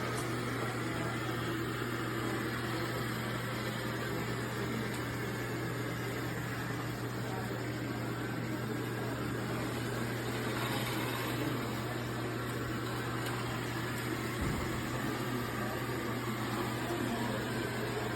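Robot vacuum running with a steady motor hum and whir.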